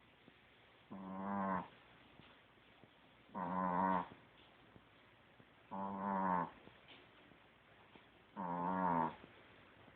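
Dog snoring in its sleep: four drawn-out, pitched, moo-like snores, each under a second long, coming about every two and a half seconds.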